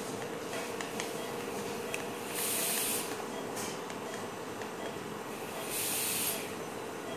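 Operating-theatre background noise: a steady hiss with a faint steady hum, and twice a brief louder rush of high-pitched hiss.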